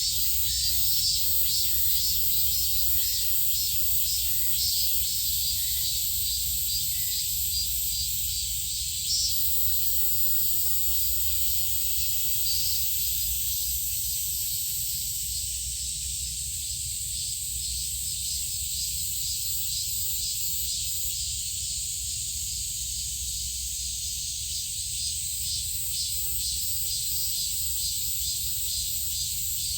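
Outdoor insect chorus: a high, fast-pulsing hiss that carries on steadily, over a low rumble.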